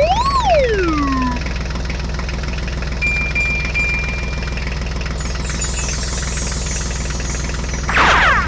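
Steady low engine drone like an idling tractor diesel, with a knocking beat. A whistle-like tone rises and falls right at the start, and a falling swoosh comes near the end.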